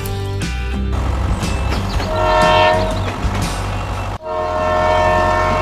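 A horn-like held chord of several steady tones sounding twice: briefly about two seconds in, and again after a sudden break a little past four seconds, over a steady low hum.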